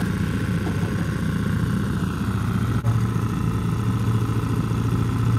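Small boat outboard motor idling steadily.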